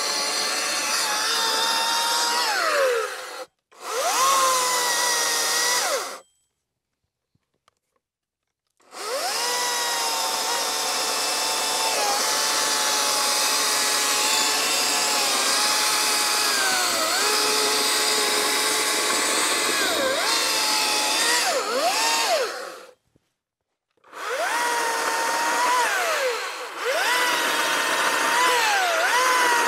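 Harbor Freight Atlas 80V brushless 18-inch cordless chainsaw cutting through wood. Its high electric motor whine dips in pitch as the chain bites into the log and rises again as it frees up. The cutting comes in several stretches that stop suddenly, with silent gaps between them.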